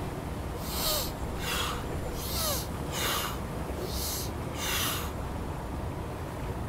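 A person breathing out forcefully through the mouth in six short, hissing breaths in quick succession, as in a qigong breathing exercise, over a low steady background hum.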